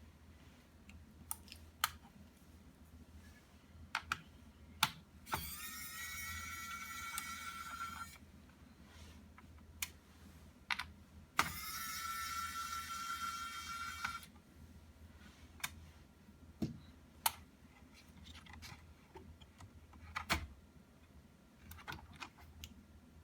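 Scattered clicks and taps of small tools and plastic laptop parts being handled. Twice a small electric motor whines for about three seconds, rising quickly in pitch and then holding steady before cutting off.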